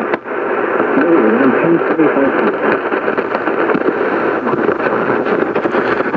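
Weak, static-laden radio reception of a severe weather warning broadcast: a steady hiss with the announcer's voice faint and barely intelligible beneath it.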